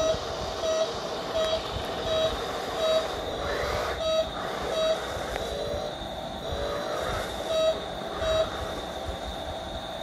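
Remote-control toy car's electronic sound effects: a short beep repeating about every 0.7 seconds like a reversing alarm, pausing for a couple of seconds in the middle, with some warbling electronic tones in between and a steady high-pitched whine underneath.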